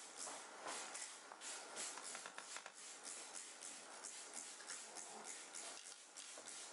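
Plastic trigger spray bottle squirting at close range: a quick, irregular run of short, faint hissing sprays.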